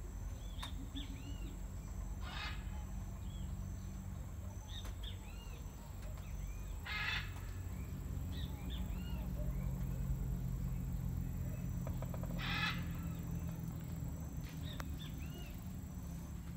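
Small birds chirping repeatedly in short arched notes, with a harsh rasping call three times, about every five seconds, over a steady low rumble.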